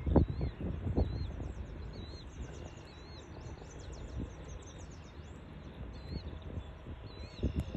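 Small birds chirping: short, repeated high notes with a fainter high twittering above them, over a steady outdoor hiss. Low rumbles come within the first second and again near the end.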